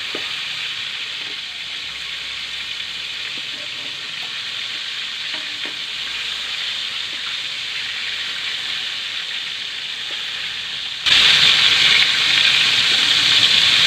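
Breaded chicken pieces deep-frying in oil in an aluminium wok: a steady sizzle, with a few light clicks as metal tongs turn the pieces against the pan. Near the end the sizzle suddenly becomes much louder.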